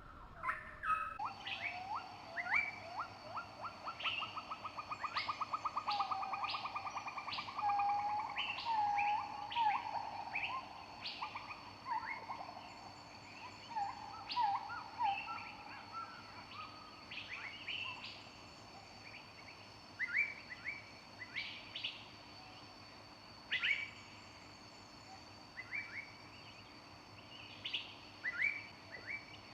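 Several songbirds singing and calling: many short chirps, a fast trill in the first few seconds, and low whistled notes around the middle, over a steady high-pitched hum.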